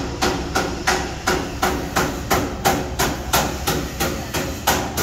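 Steady hammering on metal, even blows at about three a second.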